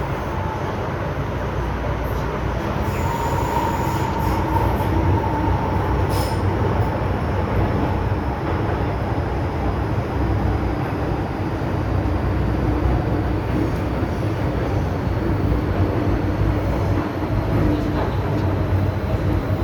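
MTR M-train electric multiple unit running at speed through a metro tunnel, heard from inside the car. There is a steady rumble of wheels and running gear with a faint whine over it.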